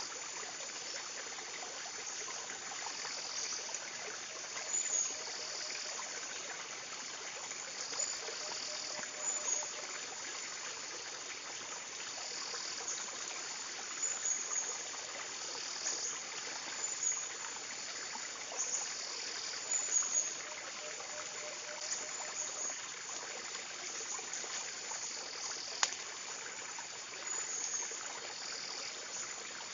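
Steady rush of running water, with insects calling in short high bursts every second or two.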